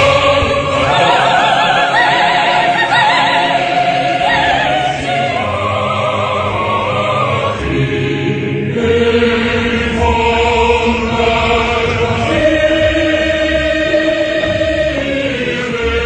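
Large mixed choir singing slow sustained chords; the sopranos' high voices with wide vibrato stand out in the first few seconds, and lower held chords take over about halfway through.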